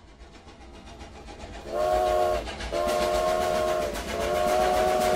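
Steam locomotive chugging and growing louder, then its whistle blowing three blasts, each a chord of several notes.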